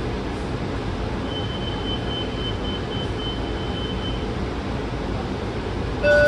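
Interior running noise of a Washington Metro 7000-series railcar under way: a steady low rumble of wheels on rail, with a thin high whine for about three seconds in the middle. A loud electronic chime starts right at the end.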